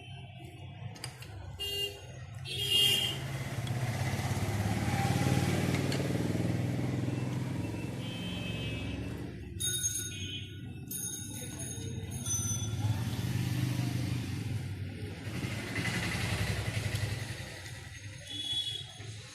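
Street traffic: motorbike engines running, swelling and fading twice as they pass, with a few short horn beeps.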